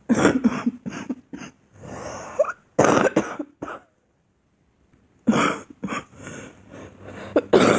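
A girl coughing in two fits of short, harsh coughs, with a pause of about a second and a half between them.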